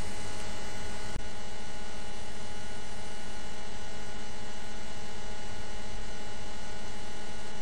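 Steady electrical mains hum and hiss, with a faint click about a second in.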